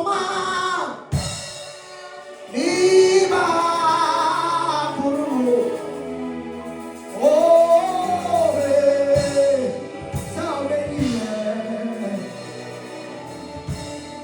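Gospel song sung by men's and women's voices over steady instrumental accompaniment, in long held phrases that begin about every two to four seconds and grow softer toward the end.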